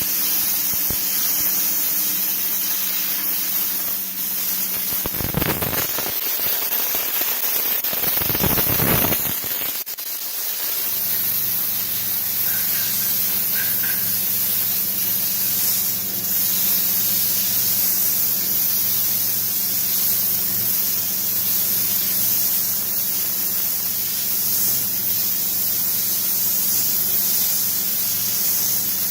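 MIG/MAG welding arc from a Zenweld Ultimate 405 MTS welder, hissing and crackling steadily with a low steady hum underneath. It is harsher between about five and ten seconds in.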